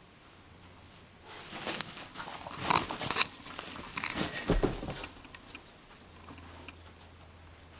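Fabric rustling and scuffing with handling noise for a few seconds, loudest in a few sharp scuffs in the middle, ending in a couple of soft low thumps about four and a half seconds in.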